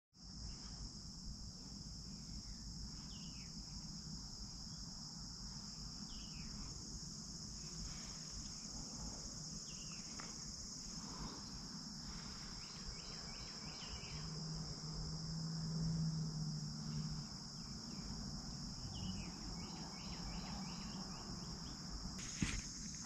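Steady high-pitched chorus of insects in the woods, with a few short chirps scattered through it. A low hum swells briefly past the middle.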